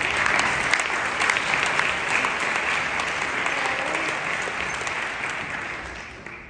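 Audience applauding as a performer walks on stage, the clapping thinning out and dying away near the end.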